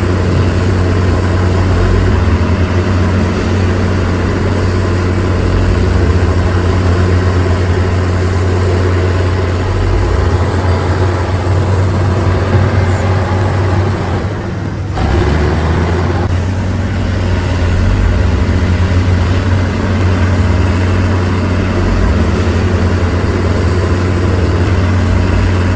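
Diesel engine of heavy road-construction machinery running steadily with a deep hum, dipping briefly about halfway through.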